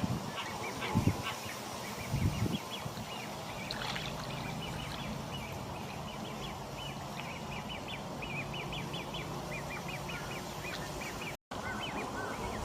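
Juvenile great crested grebes begging: a continuous run of short, high piping calls, several a second. Two low thumps come in the first few seconds.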